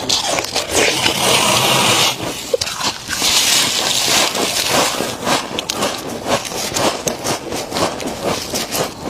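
Freezer frost being bitten and crunched close to the microphone: two longer stretches of grainy crunching and scraping in the first half, then a run of steady chewing crunches, about two to three a second.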